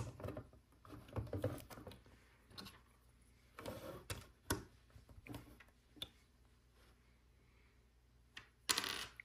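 LEGO plastic bricks being handled and pressed onto a baseplate: scattered faint clicks and taps, then a louder, brief noise near the end.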